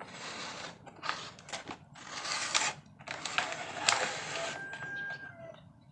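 Handling noise: uneven bursts of rubbing or scraping with sharp clicks between them, and a short thin tone near the end.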